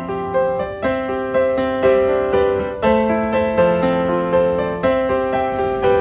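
Background music: piano or electric keyboard playing a steady, gently paced melody over sustained chords.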